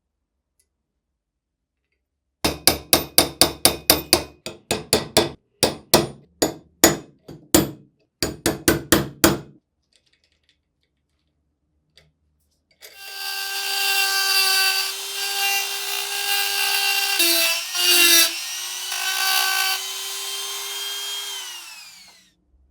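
Workshop tool work: a hand tool is worked in quick, sharp strokes, about three a second, with a short break partway. After a pause, a small electric power tool runs steadily for about nine seconds, its pitch dipping briefly midway, then stops.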